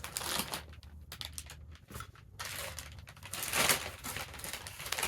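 Packaging crinkling and rustling, with small knocks and clicks, as boxed items are handled and unwrapped.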